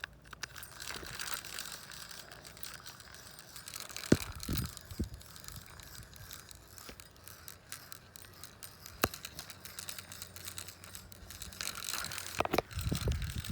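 Push-button spincast fishing reel and rod being worked by hand: rattling, scraping and handling noise with a few sharp clicks, the loudest about four seconds in and again around nine seconds. Louder rustling and thumps come near the end.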